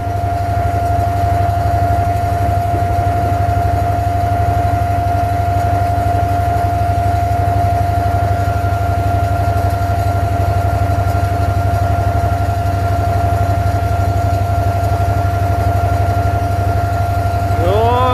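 Abra water taxi's inboard engine running steadily under way, a constant low drone with a steady whine over it, heard from aboard the wooden boat.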